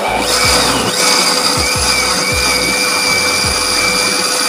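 Electric countertop blender switching on and running steadily at full speed, a loud whir with a high whine, pureeing boiled red chillies and water into a smooth liquid paste.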